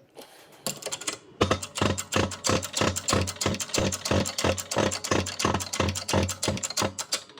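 Rapid, even metallic tapping, about five strikes a second, as a bearing cup is driven into its bore in a machined hub.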